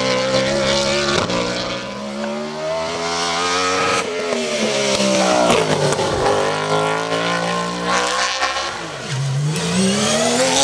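BMW M3 E92 race car accelerating hard, its engine note climbing and then dropping several times as it shifts gear and lifts for the bends. Near the end the note dips and climbs again as another race car pulls away.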